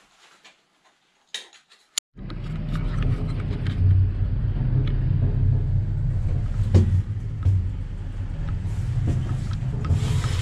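A car running with a steady low engine and road rumble that starts abruptly about two seconds in, after a couple of sharp clicks.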